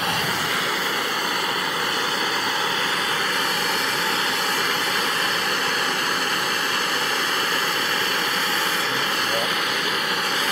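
Hand-held gas soldering torch burning with a steady hiss, its flame heating a copper pipe fitting to sweat a solder joint.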